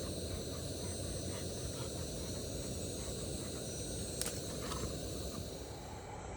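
Backpacking canister stove (MSR Pocket Rocket Deluxe) burning steadily under a pot of water being brought to the boil, a dense, even hiss. One sharp click about four seconds in.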